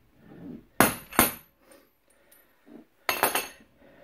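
Steel coil-spring compressor clanking as it is taken off a strut's spring by hand: two sharp metal clanks about a second in, then a short rattling clatter near the end.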